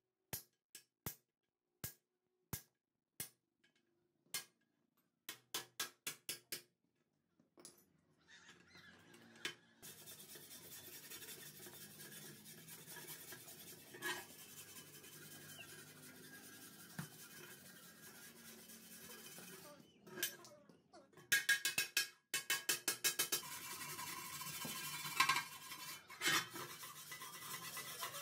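Hammer striking a rusty steel hoe blade: single taps about a second apart, then a quick run of taps. Later a knife blade scrapes rust off the hoe in rapid, repeated strokes.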